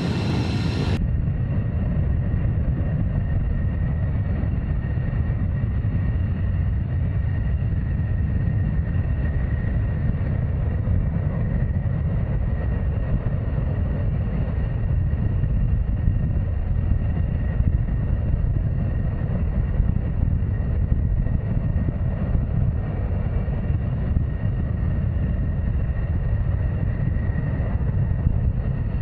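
Fighter jet engine noise: a steady, loud low rumble with a faint high whine running through it.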